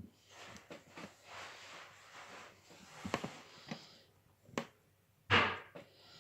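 Handling noises: soft rustling with a few sharp clicks, then a short, loud breathy burst about five seconds in.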